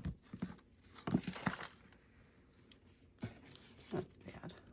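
A few light knocks and clatters of wooden rubber-stamp blocks and ink pads being picked up and set down on a cluttered craft table.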